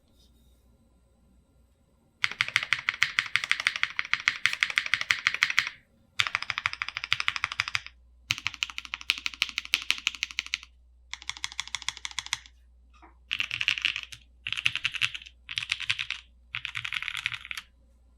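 Typing on a Monokei KFE CE tenkeyless mechanical keyboard with GMK First Love keycaps and Lavender/Cream switches, set on a deskmat. After a quiet first two seconds come fast runs of keystrokes in bursts of a few seconds, then four shorter bursts near the end.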